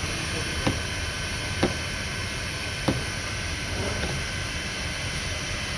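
Three short sharp knocks over a steady hiss.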